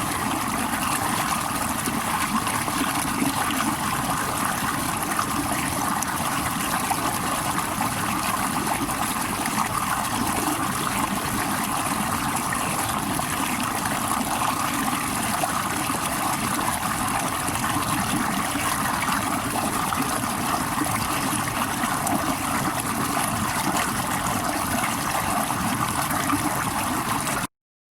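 Steady running water, unbroken and even throughout, that cuts off abruptly near the end.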